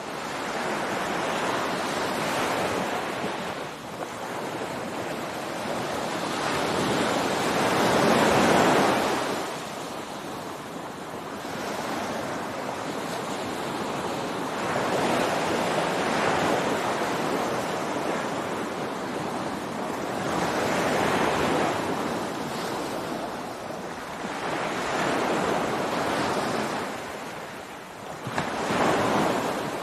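Ocean waves breaking on a beach, surf swelling and washing out in repeated surges every several seconds, with one larger wave about eight seconds in. A light wind hiss sits under the surf.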